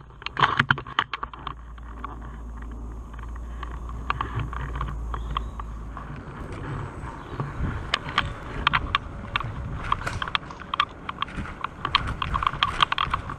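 Irregular crunches and clicks of footsteps and movement on dry leaf litter and twigs, coming thick and fast in the second half over a low rumble.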